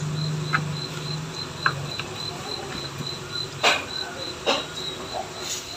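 Insect chirping in a steady high pulse, about four chirps a second. A low hum fades out in the first two seconds, and two sharp clicks come in the second half.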